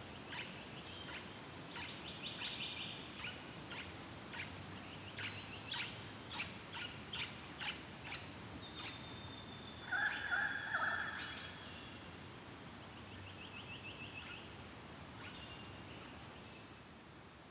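Several wild birds calling over a faint steady outdoor hiss: repeated short sharp chirps, a few fast trills, and a long steady whistle. About ten seconds in comes the loudest call, a lower broken call lasting about a second.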